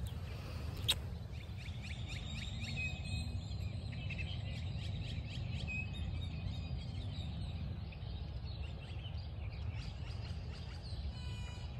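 Small birds chirping and twittering, with a few short whistled notes, over a steady low outdoor rumble. A single sharp click comes about a second in.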